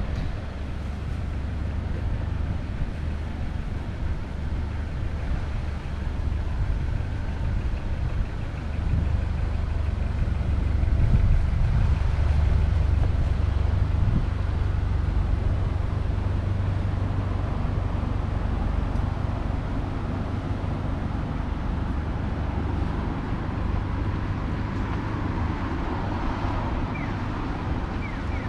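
Road traffic passing along a city street: a steady low rumble of vehicles that swells louder for a few seconds midway.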